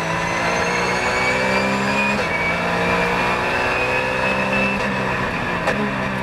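Porsche 997 Cup race car's flat-six engine heard from inside the cockpit, accelerating hard with a gear change about two seconds in. It pulls up through the revs again, then the pitch falls as the car brakes near the end, with one sharp click shortly before the end.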